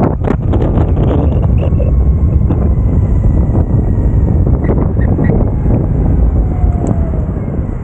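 Wind buffeting the microphone over the rumble of an electric skateboard's wheels rolling on pavement while riding, with a few sharp clicks from bumps in the surface.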